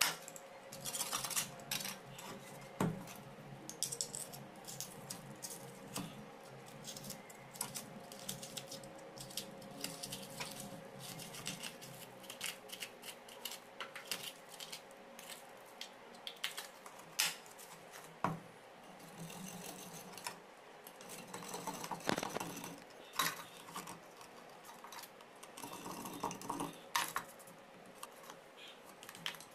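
A thin metal rod scraping and clicking against hardened cement as the holes of a homemade concrete weight plate are cleaned out, in many short irregular scrapes and taps.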